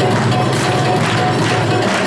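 Loud dance music with jingling hand percussion, a steady beat of tambourine-like strokes.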